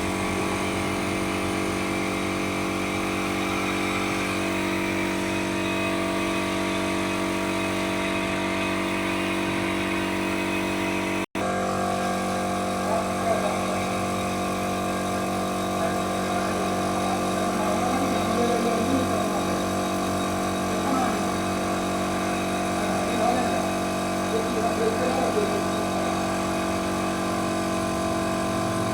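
An engine running steadily, an even droning hum. The sound drops out for an instant about a third of the way through.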